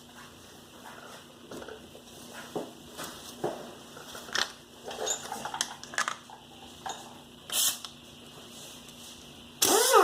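Scattered clicks and knocks of tools being handled, then near the end a power-tool motor runs briefly and winds down, falling in pitch.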